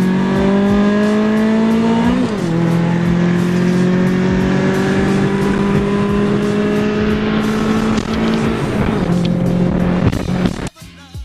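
Car engine pulling hard at full throttle in a street race. Its pitch climbs slowly, drops at a gear shift about two seconds in and again near nine seconds, and then falls away sharply just before the end.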